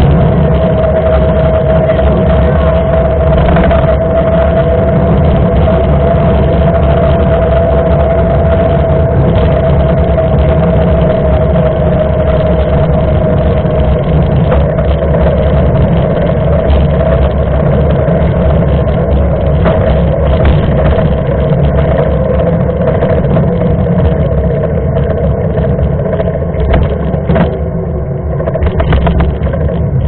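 Mountain bike rolling fast on asphalt: wind rushing over the bike-mounted camera's microphone and the knobby tyres humming, the hum slowly dropping in pitch as the bike slows. A few short knocks from bumps near the end.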